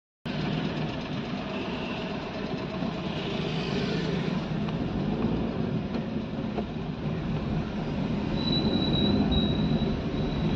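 Road traffic heard from a moving vehicle: a steady rumble of engines and tyres. A thin high squeal comes in about eight seconds in.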